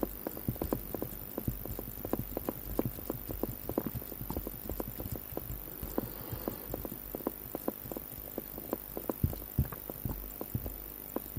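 Light, irregular clicking from the crown of a Dorval jump-hour watch's FE 233-69 movement being turned by hand to wind the hands on, a few clicks a second with a couple of louder ones near the end.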